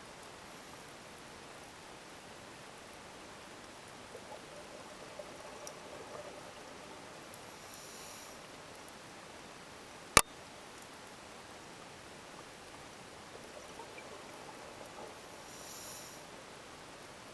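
Underwater ambience through a dive camera's housing: a faint steady hiss with scattered small crackles. A diver's scuba regulator breathes twice, as short hissing breaths about eight seconds apart, and there is one sharp click a little past the middle.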